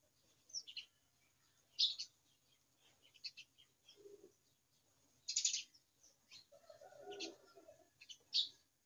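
Small birds chirping: short, high calls scattered irregularly, a few louder ones standing out, with a brief lower sound about seven seconds in.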